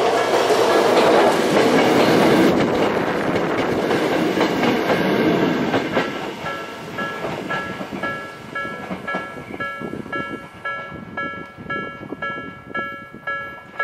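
Hakone Tozan Railway 2000-series electric train rolling past a level crossing, its wheels clattering on the rails, loudest in the first couple of seconds and fading away by about six seconds in. A level-crossing warning bell dings steadily about twice a second throughout.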